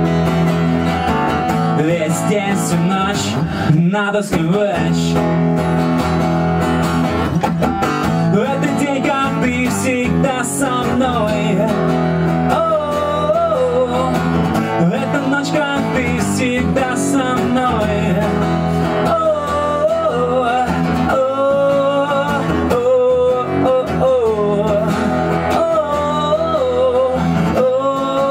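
Acoustic guitar strummed steadily while a man sings, his voice most prominent in the second half.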